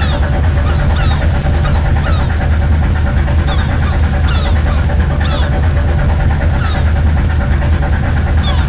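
Fishing boat's engine running with a steady low drone. Short, high calls that fall in pitch recur over it irregularly, about once a second.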